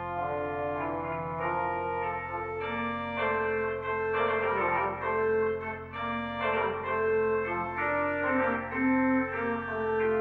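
Organ playing slow, sustained chords that change every second or so, a worship prelude or hymn.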